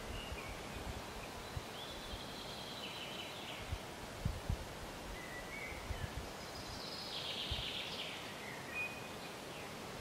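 Songbirds singing short phrases a few seconds apart over faint outdoor background noise, with a few soft low bumps.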